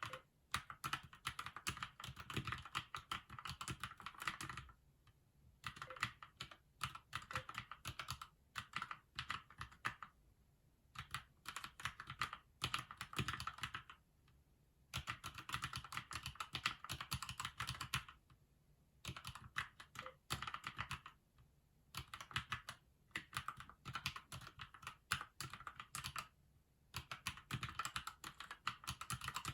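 Typing on a Keychron mechanical keyboard: quick runs of key clicks lasting a few seconds each, broken by short pauses of about a second.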